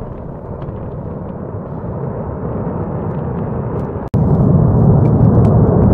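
Rumble of a large explosion, a steady low noise with scattered sharp pops that slowly grows louder. About four seconds in it cuts off abruptly to a much louder, deeper rumble from another large blast.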